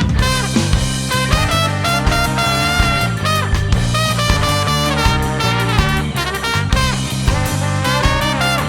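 Live ska band playing an upbeat instrumental: a horn carries a moving melody over walking bass, drums, guitar and organ.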